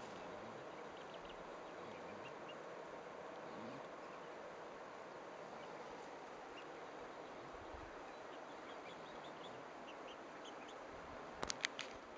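Chicks peeping faintly now and then in short, high chirps over a steady outdoor background. About a second before the end comes a quick cluster of three or four sharp clicks, the loudest sound here.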